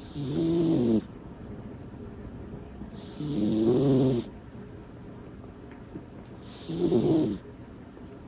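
A small cat snoring loudly: three big snores about three seconds apart, each lasting about a second, with quieter breathing between.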